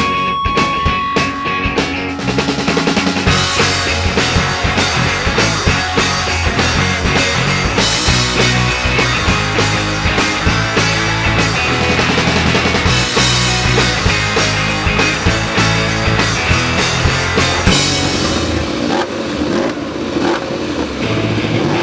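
Rock music with a driving drum kit beat and heavy bass.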